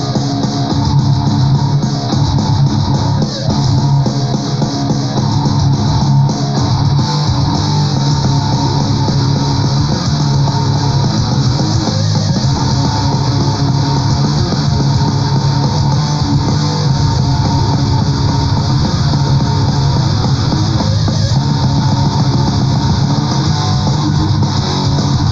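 Power prog metal recording playing loudly, with guitars to the fore over bass.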